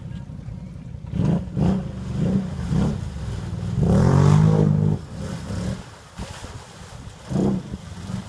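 Off-road vehicle's engine running with short throttle blips, four in quick succession early, then a longer rev that rises and falls about four seconds in, and one more blip near the end.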